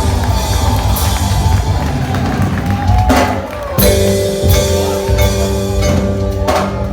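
Live band music with a drum kit and guitar, a heavy bass and cymbal crashes under steady held keyboard tones.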